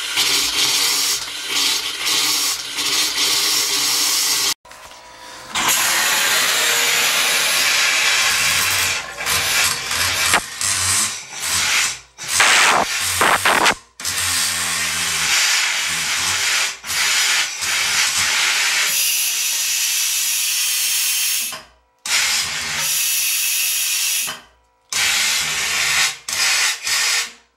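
Compressed air blowing the water out of household plumbing through bathroom faucets: a loud, rough hiss with water spitting and sputtering out, in long spells broken by a few abrupt gaps. It is winterization blow-out, with air forced through the lines until they run dry.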